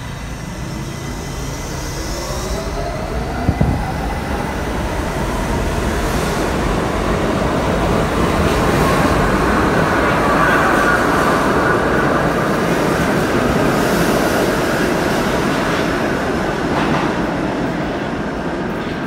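R68-series New York City subway train accelerating out of the station, its traction motors whining and climbing in pitch, with a sharp knock about three and a half seconds in. The wheels rumble and clatter on the rails, getting louder as the cars pass and easing off near the end.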